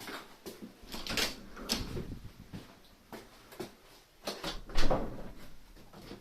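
Scattered clicks, knocks and rustles of objects being handled, with one louder knock about five seconds in.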